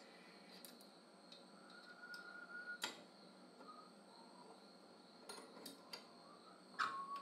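Steel wire and tools clicking and clinking on a homemade steel wire-bending jig as fencing wire is bent around its pins: scattered faint clicks, a brief squeak, a sharp click about three seconds in, and a loud ringing metal clink near the end.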